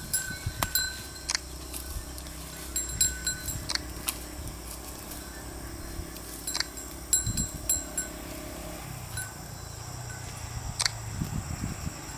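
Small bells on grazing goats tinkling now and then, a short ring about every one to four seconds, over a low steady hum.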